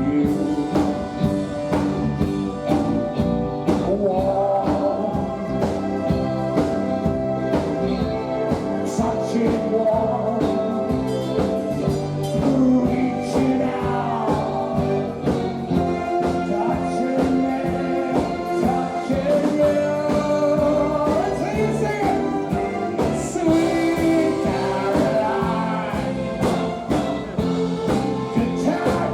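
Live band playing a song, with a singer's voice over the instruments and a steady beat.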